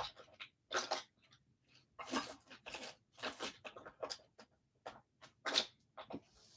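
Hands rummaging through makeup and brushes: a string of short, irregular rustles, clicks and light clatters.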